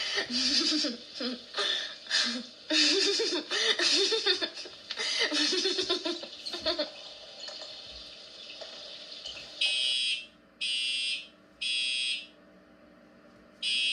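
A school fire alarm blaring in long, harsh, evenly spaced beeps about one a second, starting about two-thirds of the way in. Before it come several seconds of noisy voice-like outbursts.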